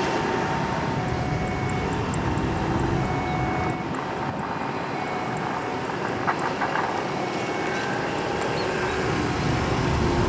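Airliner jet engines running with a steady rumbling noise and a few faint whining tones.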